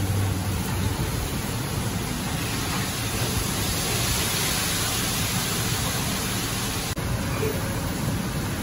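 Steady, even rushing noise of a commercial kitchen's background, with no distinct events; it drops out for an instant near the end.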